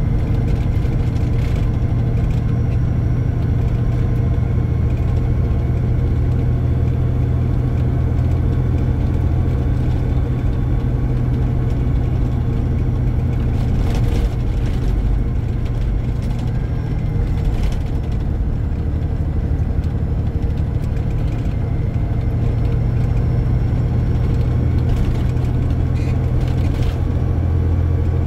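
Car driving, heard as a steady low rumble of engine and road noise, with a few faint clicks partway through.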